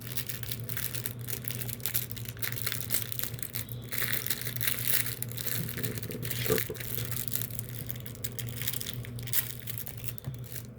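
Plastic packaging of a hard fishing lure being crinkled and pulled open by hand: a dense, irregular run of crackles and rustles, over a steady low hum.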